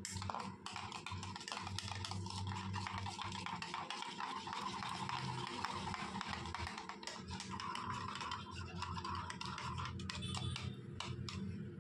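Metal teaspoon stirring thick curd in a ceramic bowl: a quick, continuous run of scrapes and light clicks against the bowl's side, busiest near the end, with background music.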